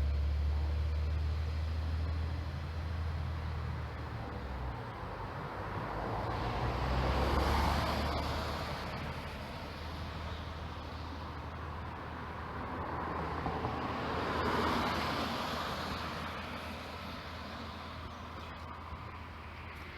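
Vehicles passing a level crossing: a heavy low rumble fades out in the first few seconds, then two swells of engine and tyre noise rise and fall, about seven seconds apart.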